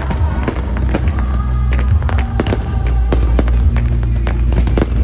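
Fireworks display: rapid, irregular bangs and crackles of bursting shells, several a second, over loud music with a heavy low bass.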